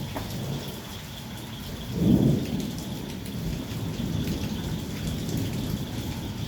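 Heavy rain falling steadily. About two seconds in comes a loud clap of thunder, which trails off into a low rumble under the rain.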